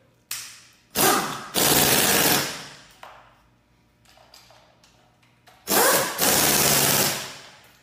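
Impact wrench hammering on engine cylinder head bolts through a 1/2-inch drive swivel impact socket: a short blip, then two bursts of about a second and a half each, a few seconds apart.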